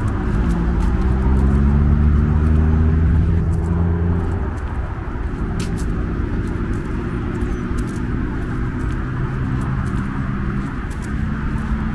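Road traffic: a motor vehicle's engine drones steadily, loudest for the first four seconds and dropping away about four and a half seconds in, over a steady wash of passing traffic.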